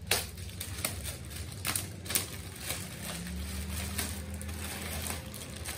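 Clear plastic packaging wrap crinkling and crackling in irregular sharp bursts as it is cut and pulled open with a utility knife. A low steady hum comes in about halfway through.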